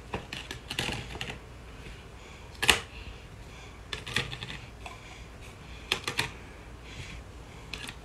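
Plastic stacking rings clicking and knocking together as they are slid onto a ring-stacking tower toy, in a few irregular light clicks, the loudest nearly three seconds in.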